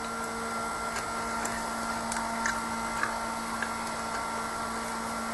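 Small electric desk fan running with a steady whir and hum, with a few faint light ticks scattered through it.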